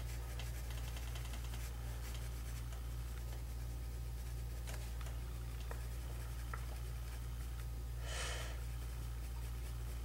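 Pencil scratching lightly on paper in short shading strokes, over a steady low electrical hum. About eight seconds in comes a brief soft rush of noise.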